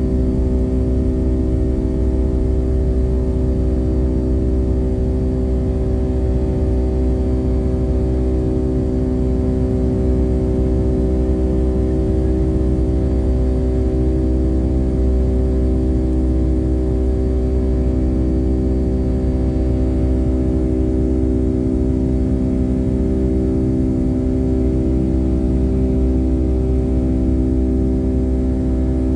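Boeing 757-200 jet engines heard from inside the passenger cabin: a steady drone of several held tones over a low rumble, holding at one pitch without rising or falling.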